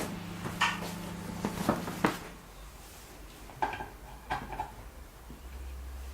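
A scattered series of light clinks and knocks of hard parts being handled, most of them in the first two seconds and a few more around the middle, over a low steady hum that stops about two seconds in.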